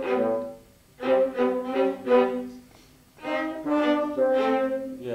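A small instrumental ensemble plays sustained chords in short phrases. One phrase ends just after the start, and two more follow with brief pauses between them, as a passage is drilled in rehearsal.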